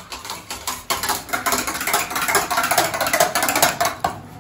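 Hand masher worked fast in a steel pressure-cooker pot, a quick run of clicks and knocks against the pot as it mashes cooked toor dal and spinach; louder from about a second in.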